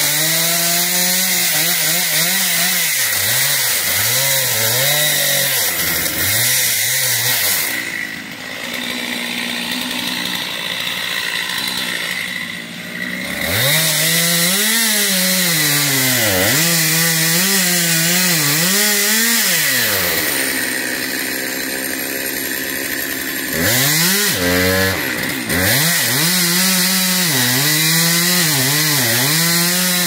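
Chainsaw running hard and cutting wood, its pitch rising and dipping again and again under load. It drops back to a lower, quieter run twice: about eight seconds in and again around twenty seconds.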